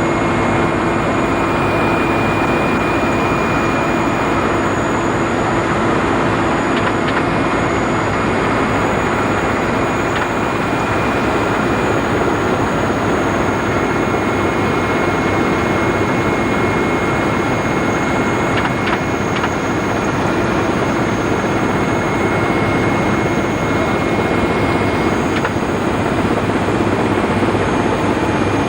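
Helicopter engine and rotor noise heard from inside the cabin: a loud, steady drone with a constant whine over it.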